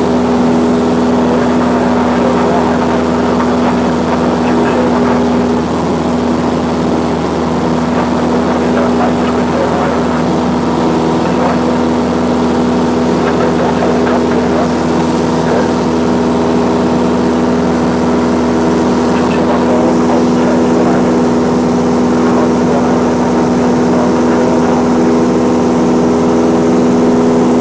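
A Cessna light aircraft's piston engine and propeller droning steadily in flight, holding one constant pitch throughout.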